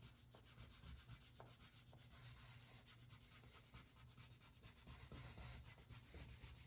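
Faint yellow crayon rubbing on paper in quick back-and-forth colouring strokes.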